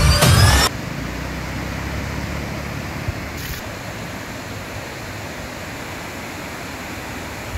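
Steady rush of a shallow rocky forest stream, water running white over boulders. Music plays at the start and cuts off suddenly within the first second.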